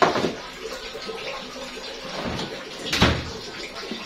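Two sharp kitchen knocks, one at the start and a heavier, deeper one about three seconds in, over the steady hiss of donuts frying in oil.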